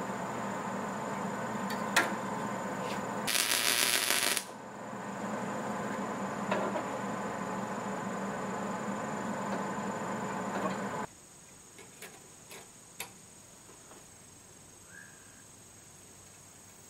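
Light clicks and clinks of steel parts being handled and fitted on a go-kart frame, over a steady background hum and hiss; a brief loud hiss about three seconds in. About eleven seconds in the background drops much quieter, with a few more sharp clicks.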